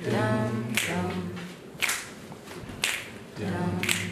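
Voices singing a wordless a cappella phrase in two stretches, over sharp snaps keeping a steady beat about once a second.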